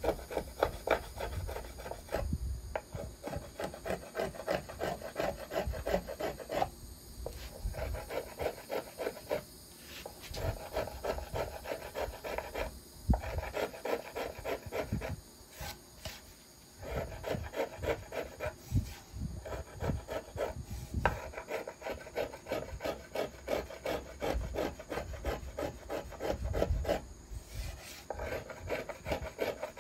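A small violin maker's thumb plane shaving the arch of a violin plate in quick, short strokes. The strokes come in runs broken by brief pauses, the longest about halfway through. This is the final smoothing of the arch.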